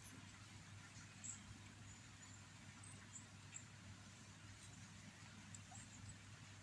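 Near silence: a faint steady low hum with a few faint, very short high chirps scattered through it.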